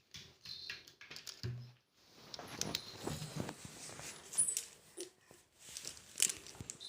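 A dog playing with a ball: irregular knocks, taps and scuffling, busiest in the second half.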